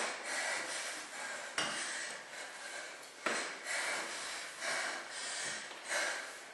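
A woman breathing hard and fast through an exercise set, picked up close on a microphone clipped to her top, with rubbing from the mic against her clothing. Quick breaths, about one a second.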